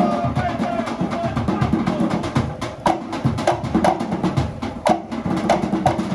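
Background music with a quick, steady drum beat.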